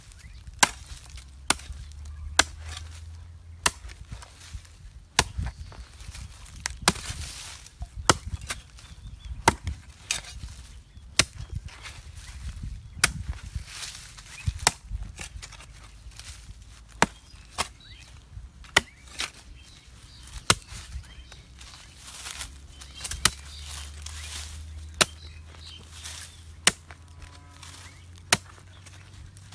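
A long-handled metal digging blade striking and chopping into hard soil again and again, about one sharp strike a second, as a hole is dug out.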